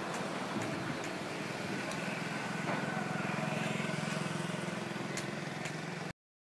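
Street traffic noise with a motor vehicle's engine running close by, its low hum growing stronger about halfway through, and a few sharp taps. The sound cuts off abruptly near the end.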